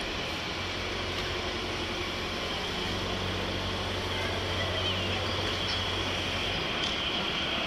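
Isle of Man Railway steam locomotive No 8 Fenella running slowly into the station with its train: a steady low rumble that grows slightly louder as it approaches.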